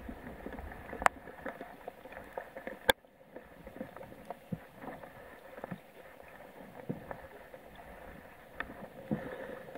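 Scattered small knocks and clicks of hands handling gear on a plastic sit-on-top kayak's deck, with two sharp clacks about one and three seconds in.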